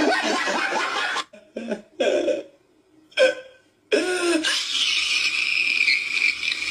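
Short meme clips cut one after another: a laughing voice, a few brief vocal snippets with silent gaps between them, and a loud cough-like burst about three seconds in. From about four seconds a drawn-out high voice follows.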